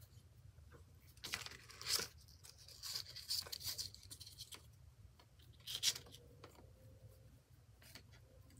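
Paper and cardboard rustling and scraping in several short bursts as red yarn is threaded and pulled through a hole in a cardboard candy-box tag.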